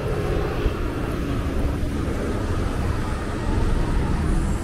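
City street noise: a steady low rumble of passing traffic.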